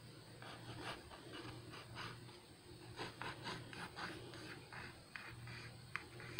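Pencil scratching on lined notebook paper in short, quick strokes, several a second and irregular, faint.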